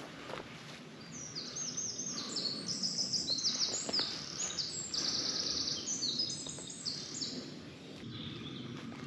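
A songbird singing a long, fast run of high, sharply down-slurred notes for about seven seconds, over the rustle and crunch of footsteps on the forest floor.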